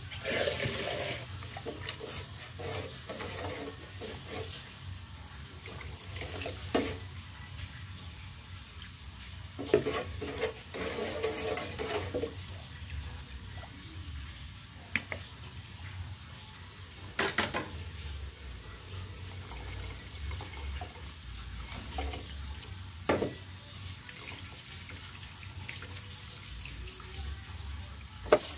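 Liquid sloshing and pouring in a large aluminium cooking pot as a curry broth is stirred with a ladle, with a few sharp knocks of the ladle against the pot.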